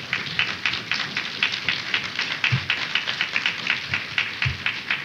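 Audience applauding: many hands clapping together without pause.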